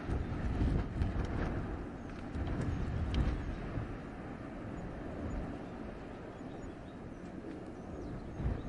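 Wind blowing through a winter forest in gusts, with a low rumble that swells twice in the first few seconds and then eases, and a few faint clicks.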